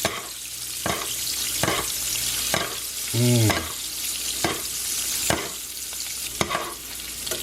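Salmon frying in butter in a pan, sizzling steadily, with a spoon knocking against the pan about once a second as the foaming butter is basted over the fish. A brief pitched tone sounds about three seconds in.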